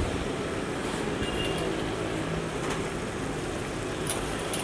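Tomato sauce simmering in a large cast-iron pan, with a few soft bubble pops over a steady low rumble.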